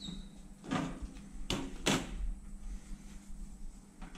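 A cover panel on a crossbar telephone switch's equipment bay being opened by hand: a short slide, then two sharp clacks less than half a second apart, over a faint steady hum.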